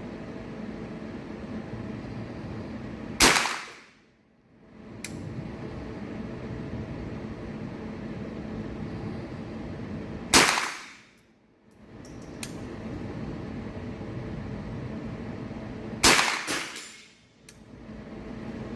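Three single shots from a Rossi 7022 .22LR rifle, a few seconds in, about ten seconds in and near the end, each a sharp crack spaced roughly six to seven seconds apart. A steady hum runs underneath.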